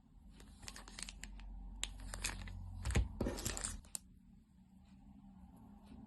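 Packaging being torn open and crinkled by hand: a run of rustling and ripping for about three and a half seconds, loudest just past the middle, then only faint handling.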